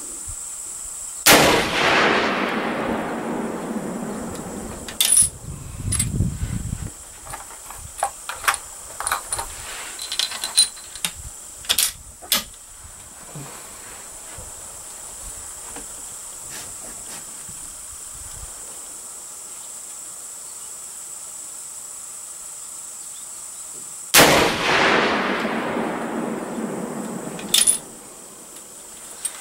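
Two rifle shots from a .30-06 firing 165-grain Spitzer boat-tail bullets, about twenty-three seconds apart. Each shot rolls away in a long echo that fades over several seconds. Between the shots comes a string of metallic clicks and clacks as the rifle is handled and reloaded, over a steady high insect chirring.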